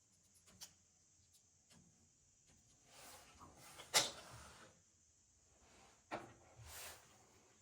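Scattered clicks and knocks of hands handling parts and tools, the sharpest about four seconds in and another about six seconds in.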